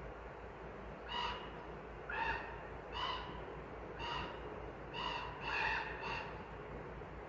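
A bird calling repeatedly: about seven short, ringing calls spaced roughly a second apart, two of them close together near the middle, over the steady rush of a stream.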